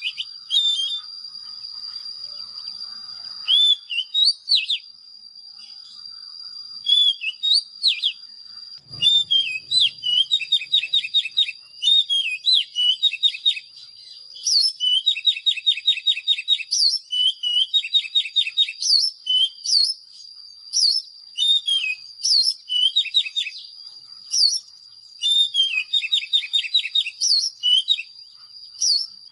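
Oriental magpie-robin singing: loud phrases of clear, sliding whistled notes mixed with fast rattling runs of short notes, repeated over and over. A thin, steady high-pitched tone runs underneath.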